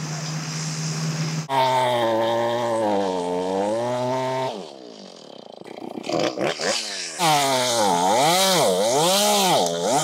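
Chainsaw cutting through a large tree trunk during felling. It runs steady, revs up about a second and a half in, and eases off briefly near the middle. It then labours in the cut, its pitch sagging and recovering over and over.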